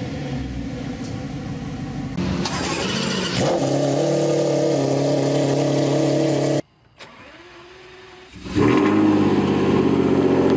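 Car engines starting and idling, clip after clip. One engine flares up about two and a half seconds in and settles to a steady idle. After an abrupt cut near the middle comes a quiet rising whine, then another engine catches loudly and idles high and steady.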